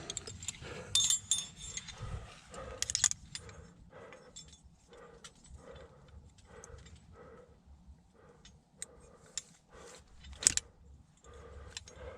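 Metal climbing gear (carabiners and quickdraws on a harness) jingling and clinking in scattered sharp chinks, with the climber's heavy, rhythmic breathing underneath.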